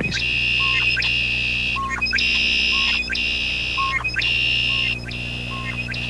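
Male red-winged blackbirds singing their territorial song: long, high, buzzy trills one after another with barely a break between them, each set off by short gliding notes.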